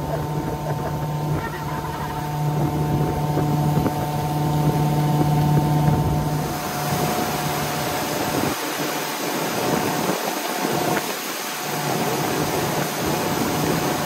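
Small motorboat's engine running at cruising speed with the rush of water along the hull. About halfway through, a steady rushing noise of wind and water takes over and the engine hum fades into it.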